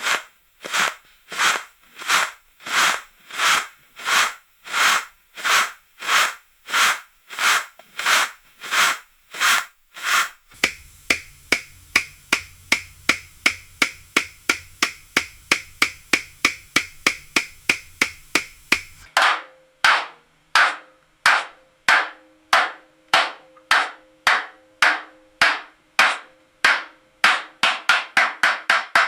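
A steady series of sharp knocks, like repeated tapping or hammer strikes. They run about one and a half a second for the first ten seconds, then speed up to about two and a half a second over a low hum that stops a little past halfway, and quicken again near the end.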